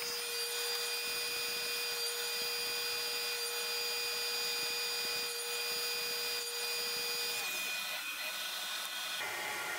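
Table saw running with a steady whine as hexagon cuts are made through a walnut blank on a crosscut sled; the tone shifts about seven seconds in.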